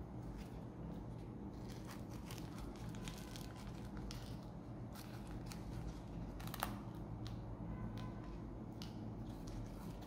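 Nylon Swiss Army knife pouch being handled: scratchy rustling of the fabric and rasps of its hook-and-loop flap being pulled open and pressed shut, with one sharp click a little past halfway.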